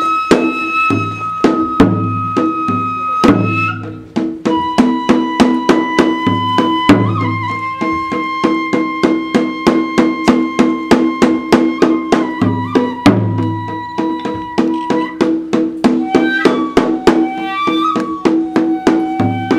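Kagura music: a Japanese bamboo transverse flute holds long notes, changing pitch only now and then, over a steady drum beat of about four to five strokes a second, with deeper drum thumps every so often.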